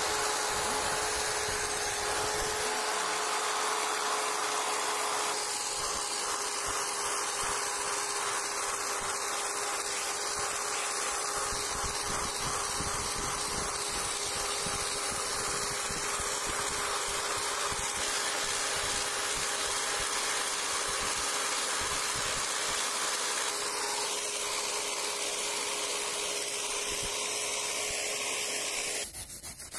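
Electric drill spinning a wire cup brush against the rusty steel blade of an old crosscut saw, stripping the rust: a steady motor whine over the scratchy hiss of the wire bristles on the metal. The drill cuts off near the end.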